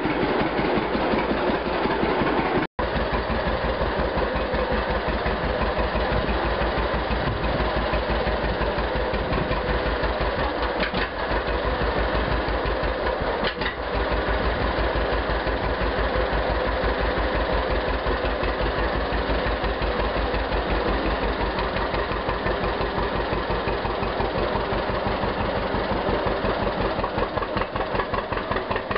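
John Deere Model A two-cylinder tractor engine running steadily, with an even, regular exhaust beat.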